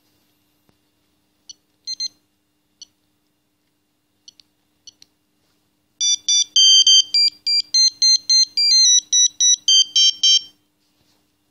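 Philips Xenium 989 mobile phone: a few short, separate beeps, then a ringtone plays a quick multi-voice electronic melody for about four and a half seconds and stops.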